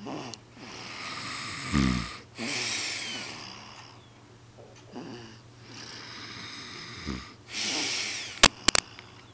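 A sleeping man and baby snoring: long hissing breaths, with low rattling snores about two seconds in and again about seven seconds in. A few sharp clicks near the end.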